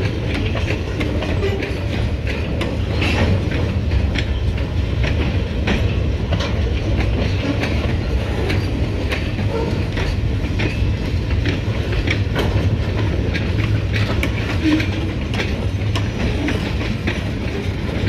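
Freight cars loaded with pulpwood rolling past: a steady rumble of steel wheels on rail, with frequent sharp clacks as the wheels pass over the rails.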